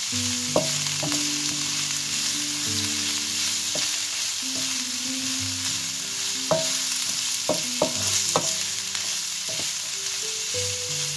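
Julienned vegetables sizzling in olive oil in a wok while a wooden spatula stirs them. The spatula scrapes and knocks against the pan several times, mostly in the second half.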